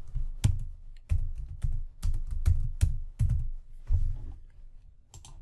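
Typing on a computer keyboard: a run of irregular keystrokes, each a sharp click with a dull thud, that thins out to a few faint clicks about four and a half seconds in.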